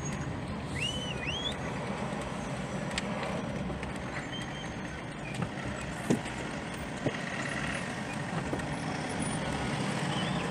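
Steady engine and road noise inside a moving car, picked up by a windscreen-mounted camera, with a few sharp clicks and a brief gliding chirp about a second in.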